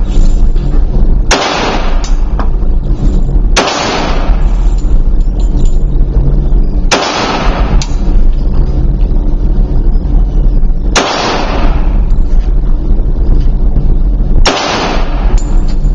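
HK Mark 23 .45 ACP pistol fired on an indoor range: five single shots a few seconds apart, each with a reverberant tail. A steady low rumble runs underneath.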